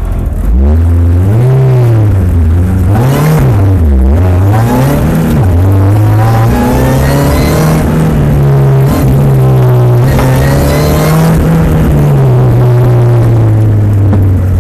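Open-top sports car's engine driven hard on an autocross run, heard from inside the cockpit. The revs climb and fall several times in the first few seconds, then hold high with brief dips as the car lifts and accelerates between cones.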